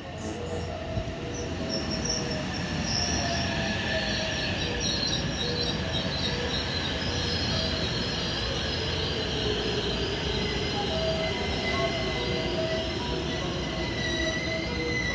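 JR West 225-series and 223-series electric train pulling into the platform and braking, with high wheel and brake squeal over the rolling rumble, and a tone falling in pitch as it slows.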